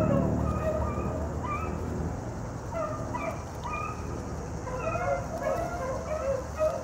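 A pack of hounds baying on a scent trail, with many short, repeated calls overlapping one another. A low rumble sits under the calls for the first couple of seconds.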